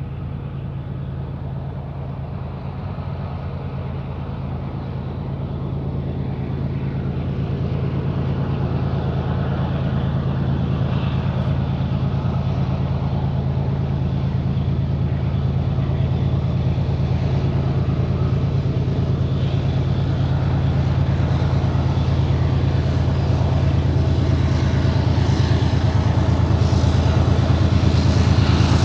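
Diesel freight locomotives working hard up a grade under a heavy intermodal train: a steady low engine drone that grows steadily louder as they approach.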